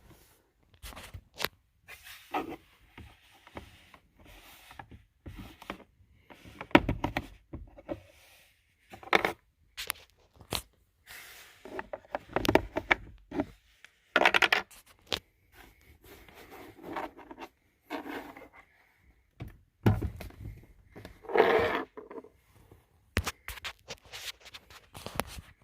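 Hands working plastic interior trim around the glove box and cabin air filter cover of a car: an irregular run of clicks, knocks and scrapes, with several sharper knocks.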